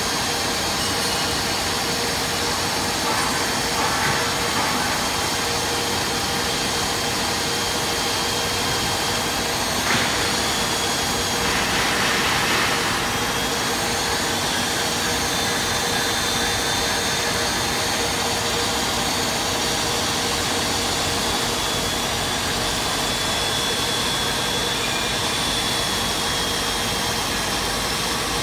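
CNC single-head beam drilling machine (DZL600) running: a steady mechanical hum and hiss with a thin high whine. There is a sharp click about ten seconds in and a brief louder rush a couple of seconds later.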